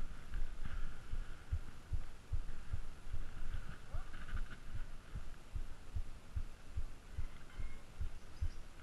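Low, irregular thumping on the microphone, a couple of dull knocks a second, over a faint background hiss.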